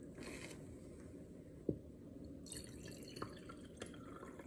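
White wine pouring from a bottle into a glass over ice, faint, starting about halfway through, with a light click before it.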